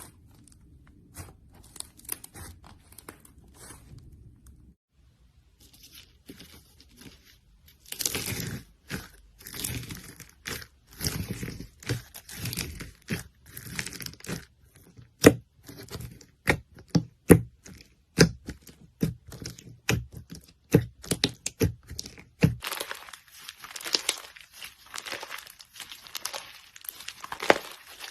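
Hands squeezing and stretching slime. Faint clicks at first, then from about eight seconds in a run of sharp sticky pops and clicks, turning into dense crackling near the end.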